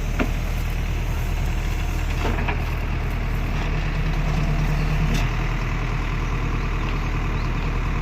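Heavy earthmoving machine's engine running steadily, with a few faint knocks and a stronger low hum for a couple of seconds midway.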